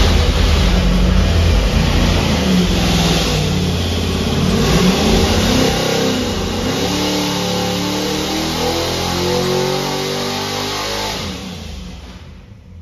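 377-cubic-inch Ford Clevor V8 (Fontana block) running a full-throttle pull on an engine dyno, its revs climbing steadily under load to about 6,000 RPM. The engine is then backed off near the end and the sound falls away.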